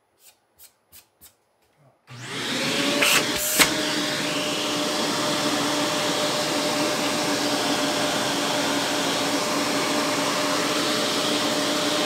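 Handheld vacuum cleaner switched on about two seconds in and running steadily with a hum, sucking dust out of an opened laptop's fans and logic board as a brush loosens it. A few faint ticks come before it starts, and two sharp knocks come soon after.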